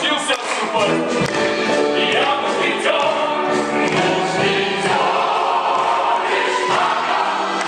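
Musical-theatre ensemble number: a chorus of voices singing together over orchestral accompaniment, the notes held and changing every half second or so.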